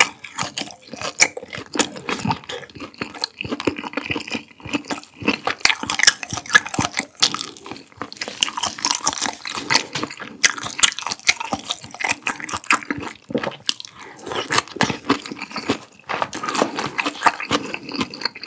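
Close-miked wet chewing of a mouthful of spicy stir-fried webfoot octopus with smoked pork belly: a dense run of small clicks, smacks and squelches, broken by a few short pauses.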